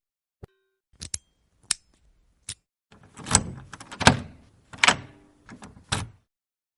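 A series of short, sharp clicks, followed by a cluster of louder knocks and thuds about three to six seconds in, like a mechanism or a door being handled.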